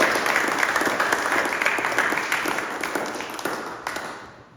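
A small group of people applauding, the clapping dying away near the end.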